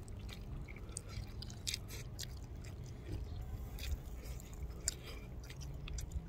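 A person chewing a mouthful of whole grilled anchovies, with scattered small clicks, over a faint steady low hum.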